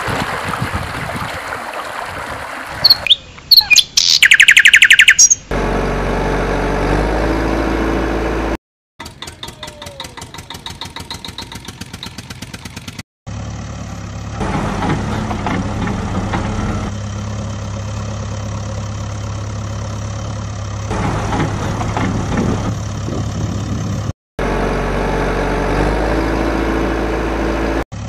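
A string of edited-in sound effects. Running water at first, then loud bird chirping for about two seconds, then an engine idling, with a few seconds of rapid regular clicking in the middle. A long stretch of steady engine idling ends it, laid over the toy JCB loader tractor.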